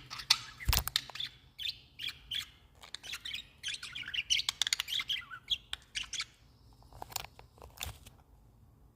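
Pet budgerigars chattering: rapid twittering chirps and warbles, thinning to a few scattered clicks and chirps near the end. A single sharp knock sounds a little under a second in.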